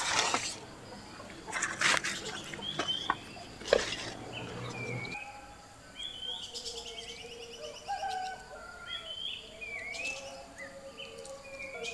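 Leaves and twigs rustling and snapping as leaves are picked by hand, loudest in the first four seconds, with small birds chirping throughout. About five seconds in a low hum cuts off, and repeated short bird chirps and sweeping calls take over with only light rustling.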